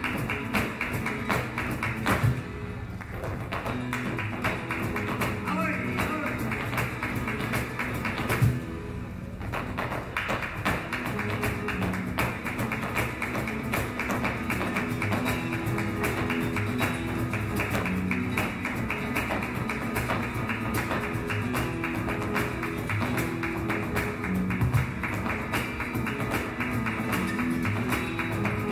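Flamenco zapateado: rapid, dense stamping of a dancer's shoes on the stage floor over guitar and cello accompaniment. The stamping drops out briefly twice, about two and a half and nine seconds in.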